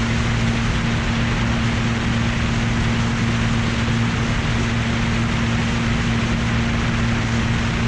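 Cessna 182's piston engine and propeller running steadily in cruise, a constant low drone under heavy rushing airflow noise.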